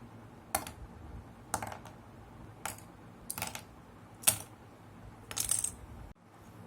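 Sharp plastic clicks and snips from building a Gunpla plastic model kit, with parts being cut from the runner and handled. About six separate clicks come roughly a second apart; the loudest falls about two-thirds of the way through.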